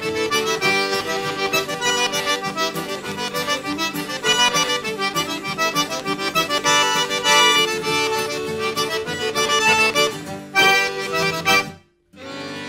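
Background music with a steady beat that cuts off suddenly near the end; after a brief gap a new held chord begins.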